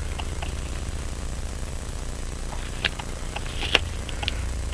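Light, irregularly spaced clicks and taps from handling a small watch movement and its tools, the sharpest two a little under a second apart near the middle, over a steady low electrical hum.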